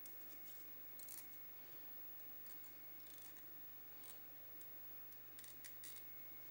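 Faint, scattered crisp clicks and crackles of stiff deer hair and tying thread being worked by hand at a fly-tying vise, coming in small irregular groups, over a low steady hum.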